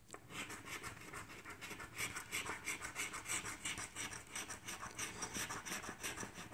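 Coin scratching the coating off a scratch-off lottery ticket in quick repeated strokes, a few a second, getting busier from about two seconds in.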